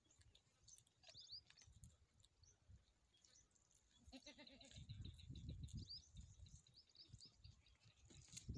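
Near-quiet open air with a faint, distant goat bleat about four seconds in and small high chirps scattered through. A low rumble rises in the second half.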